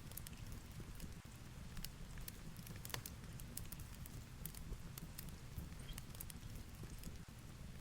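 Ambience of heavy rain and a crackling fireplace: a steady low rumble with irregular sharp crackles and pops.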